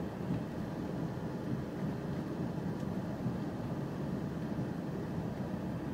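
Car driving at low speed, heard from inside the cabin: a steady low rumble of tyres and engine.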